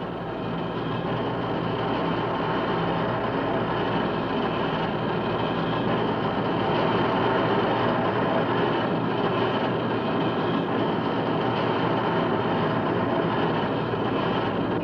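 Steady, dense running noise of heavy workshop machinery, growing a little louder over the first few seconds.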